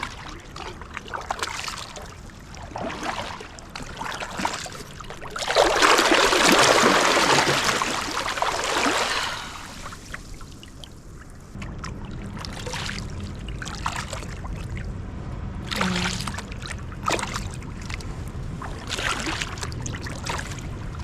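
Kayak paddle strokes dipping into lake water and dripping, one every second or two. A few seconds in there is a louder rushing splash lasting about four seconds, and about halfway through a low steady rumble sets in under the strokes.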